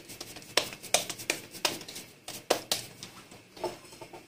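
A thin polythene bag crinkling and crackling in quick, irregular snaps as it is handled and spread flat on a countertop.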